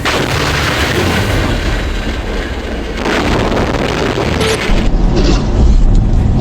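Vehicle crash noise: a sudden loud impact that runs on as a long noisy crunch, a second surge about three seconds in, then a deep rumble.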